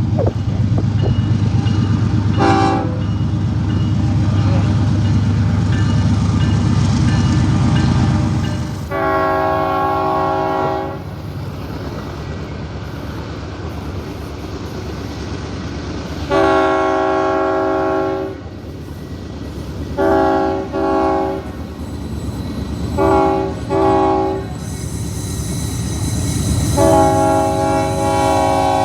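A locomotive's five-chime air horn (Nathan Airchime K5 series) sounds a chord in a series of blasts: a brief toot about two seconds in, two long blasts, two pairs of short toots, and a last long blast near the end. Under the first part there is a loud low rumble of the train running on the rails, which fades about eight seconds in.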